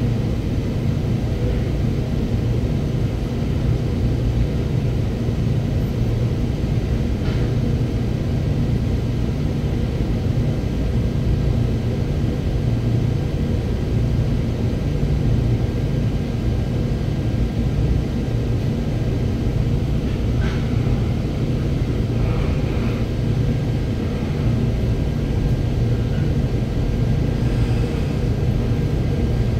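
Interior sound of a Seoul Subway Line 4 train running: a steady low rumble of the car and wheels on the track. A few brief higher-pitched squeaks come through about two-thirds of the way in.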